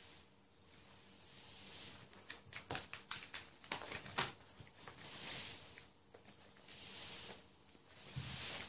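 Plastic sleeve pages of a card-filled ring binder being turned by hand: several soft swishes, with a run of sharp clicks and crinkles in the middle.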